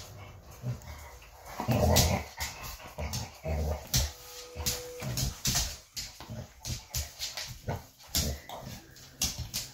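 Pit bull dog making short low play noises and a brief whine a little before halfway, amid quick irregular taps and slaps as a cat swats at its face.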